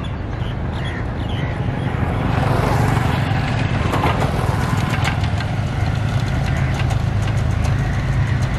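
Two motorcycles ride past close by, their engines loud from about two and a half seconds in, over a steady low rumble from an approaching diesel locomotive.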